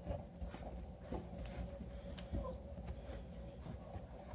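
Faint scuffling and scattered soft clicks of 8-week-old Bluetick Coonhound puppies moving about and mouthing plush toys on a blanket, with one brief faint squeak a little past halfway.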